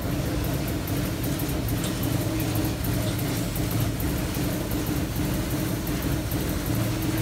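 Amada HFB 5020 hydraulic CNC press brake standing powered up with its hydraulic pump motor idling, giving a steady low hum.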